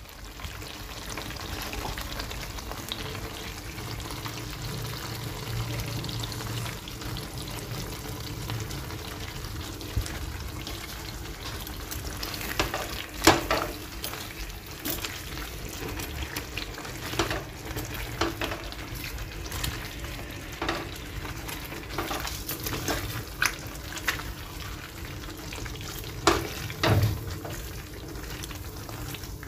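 Chicken chaap gravy sizzling in its released oil in a kadai, over a steady low hum. From about halfway through come scattered taps and scrapes of a silicone spatula against the pan.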